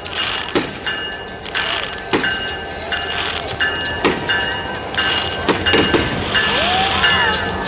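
Train running, with a steady high ringing of tones and several sharp bangs along the way.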